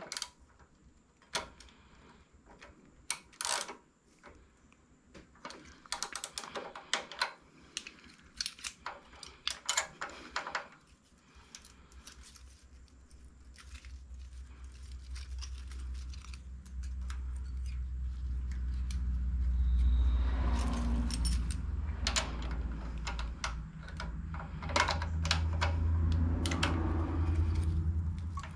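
Hand tools and small metal parts clicking and clinking on the engine in quick, irregular taps. About halfway through, a low rumble builds and then stays loud with the clicks over it, easing near the end.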